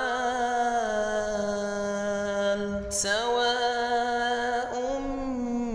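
A male voice reciting the Quran in a drawn-out melodic chant (tajwid), holding long notes with slow bends in pitch. A sharp "s" sound comes about three seconds in, as a new word begins.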